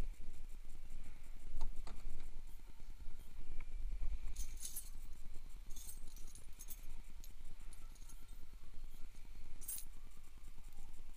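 Small metal spanners and bolts clinking and jangling as they are picked up and sorted by hand, in several brief jingles a second or more apart.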